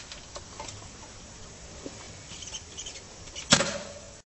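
Dirt bike side stand being flipped up off asphalt: a few light taps and scrapes, then one sharp metallic clank with a short ring about three and a half seconds in as the stand snaps up.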